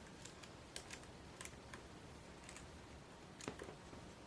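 Faint, irregular clicks of a lock pick and tension wrench working the pin stack of a Grainger 1XRV5 pin-tumbler padlock with spool security pins.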